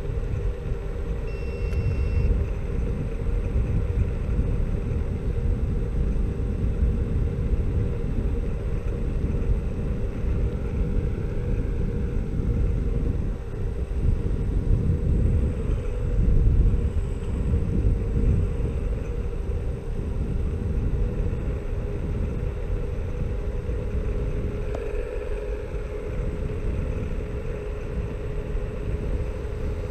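Xiaomi Mi Scooter Pro 2 electric scooter riding along an asphalt road: a steady low rumble of tyres and wind, with a constant hum running through it.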